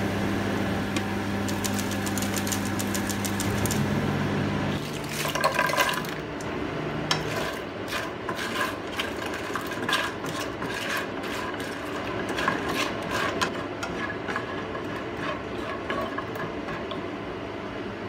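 A steady low hum with sizzling for about five seconds. Then a wooden spatula scrapes and taps repeatedly on a nonstick frying pan as fried king oyster mushroom pieces are stir-fried quickly in a thick sweet-and-sour sauce.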